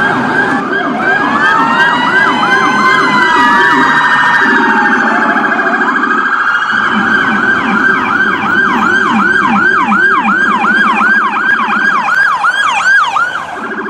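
Electronic emergency-vehicle sirens sounding together: a slow rising and falling wail over overlapping sweeps, then a fast yelp that sweeps up and down about three times a second, over a lower pulsing tone.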